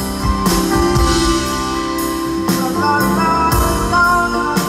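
A live band playing an instrumental passage: acoustic guitar with sustained chords over a steady drum beat, without singing.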